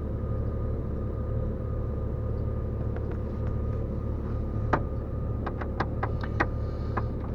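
A run of sharp, irregular clicks and taps from hand tools and plastic trim while the screws under the Jeep XJ's lower dash panel are worked on, starting a little past halfway, over a steady low hum.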